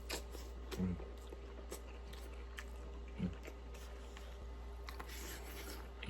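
Close-miked chewing of food, with small wet mouth clicks and two short voiced hums about one and three seconds in.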